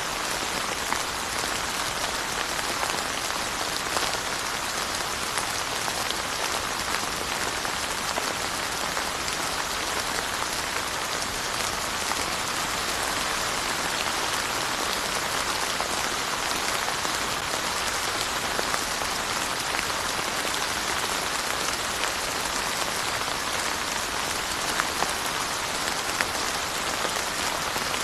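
Steady rain falling, with a dense even hiss and scattered individual drops ticking on a hard surface.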